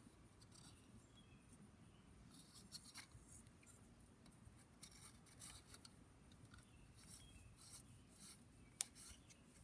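Faint metal scratching and small clicks as a metal ring is pressed by hand into the housing of an Edison Diamond Disc reproducer, with one sharper click near the end.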